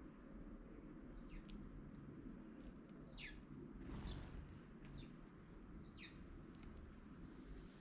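Faint, short high chirps of small garden birds: about five scattered calls, each sliding downward in pitch, over a low steady background noise.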